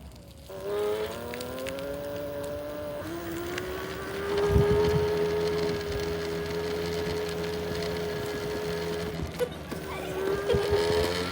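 Gotrax GXL V2 electric scooter's front-wheel hub motor whining. The pitch rises about half a second in, then holds steady, dips briefly near the end and climbs again. This is the front-wheel noise the owner reports as an issue.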